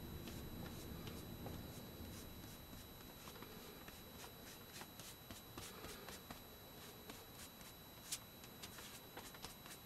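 Faint rustling and light scratching of a paper book page as fingers rub and spread wet paint across it: many small irregular scrapes, with a sharper tick about eight seconds in.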